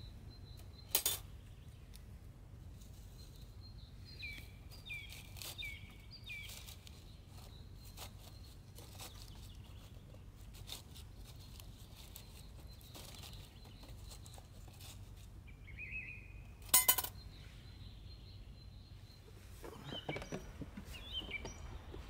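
Birds chirping over a low steady rumble, with two sharp clicks, one about a second in and a louder one about three-quarters of the way through, and a patch of light clattering near the end.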